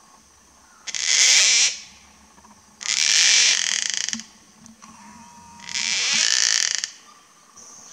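Male gang-gang cockatoo giving three harsh, creaky calls, each about a second long and a second or two apart.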